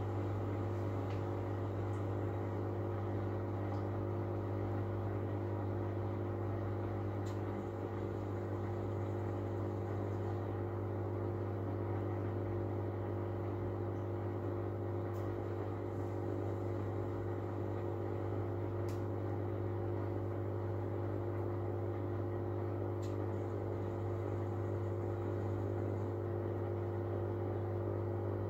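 Miele W433 front-loading washing machine running with a steady hum during the second interval of its first interim spin, with the suds lock holding the spin back because of too much foam. A few faint ticks sound over the hum.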